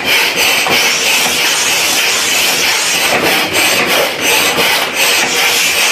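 A loud, continuous harsh rasping noise that starts abruptly and runs on without a break, with no separate blows.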